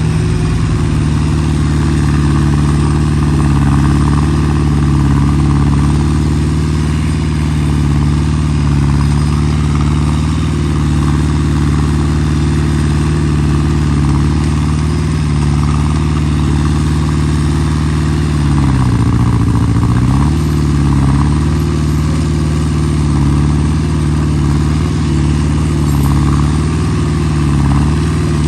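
Excavator's diesel engine running steadily at working revs, its pitch sagging briefly about two-thirds of the way through as it takes a load, then recovering.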